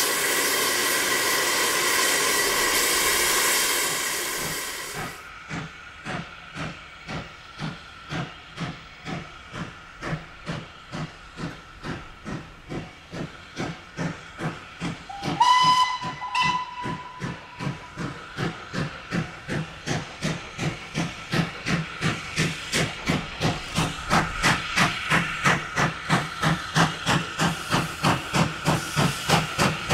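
LSWR T9 4-4-0 steam locomotive: a loud hiss of steam for the first few seconds, then the engine working a train with steady exhaust beats, about two a second, growing louder and quickening toward three a second as it approaches. A short whistle sounds about halfway through.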